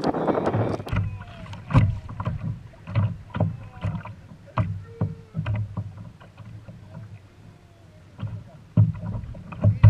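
Water slapping and knocking against a plastic sit-on-top kayak's hull: irregular knocks and low thumps with short gaps between them. There is a rush of wind on the microphone for the first second.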